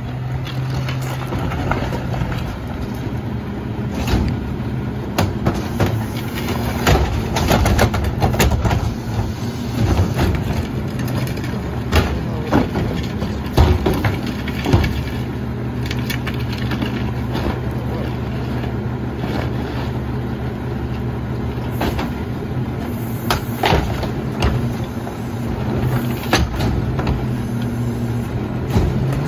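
Rear-loader garbage truck's engine idling steadily while plastic trash carts are rolled over gravel and knock against the truck's hopper, with repeated sharp clatters. Near the end the engine speeds up as the cart tipper lifts a cart to dump it.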